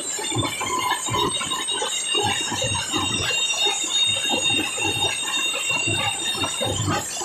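Loud amplified band music from a competition sound system: a heavy beat about twice a second under a long held high note, which stops shortly before the end.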